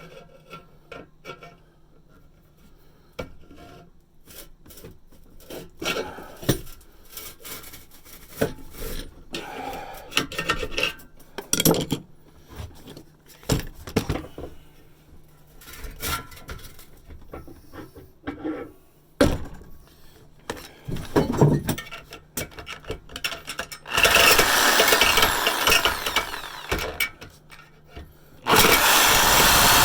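Scattered knocks and metal clatter as a rusted exhaust pipe is handled and positioned, then a power saw cutting into the pipe in two loud, steady runs: one lasting about three seconds from some 24 seconds in, and another starting shortly before the end.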